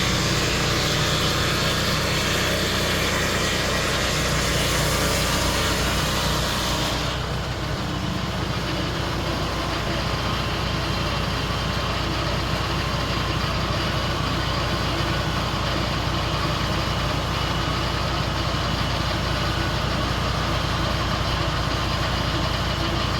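Portable sawmill's engine running steadily. A loud high hiss over it stops about seven seconds in, leaving the engine alone.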